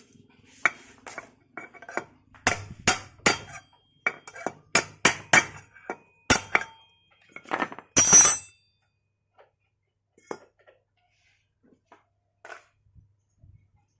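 Metal tools and scooter CVT parts clinking and knocking as they are handled and set down: a quick run of sharp clinks for about eight seconds, the loudest one near the end of that run, followed by a few faint ticks.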